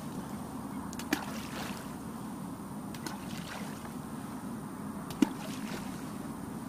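Balls of groundbait thrown by hand splashing into the water, three times about two seconds apart, the last the loudest.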